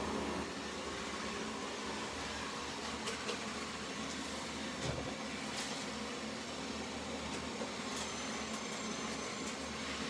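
Roborock S7 Plus robot vacuum cleaner running with a steady whir and low hum, with a few light clicks scattered through it.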